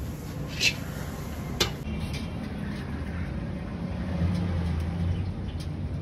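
Steady low vehicle rumble, with two short light clicks in the first two seconds.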